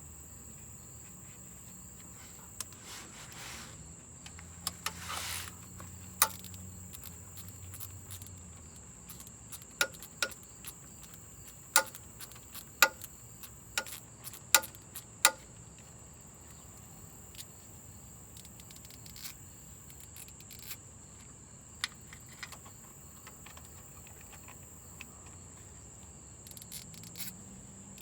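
Crickets trilling steadily, with scattered sharp metallic clicks and taps from hand tools working the transmission pan bolts, most of them in a cluster around the middle.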